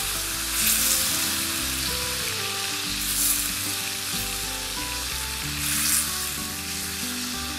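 Strips of beef tenderloin sizzling as they sear in very hot oil in a frying pan. A steady hiss flares louder about a second in and again near six seconds.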